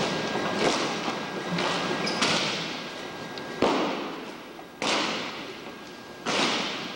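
Drill rifles handled in unison by a drill squad: five sharp cracking impacts about every second and a half, each ringing out in a large gymnasium.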